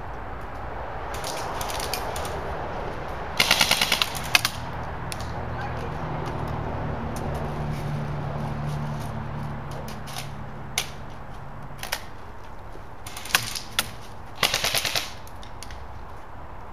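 Airsoft electric guns firing short full-auto bursts, a fast rattle of shots, with a few single shots in between: a burst of about half a second a few seconds in, and two shorter bursts near the end.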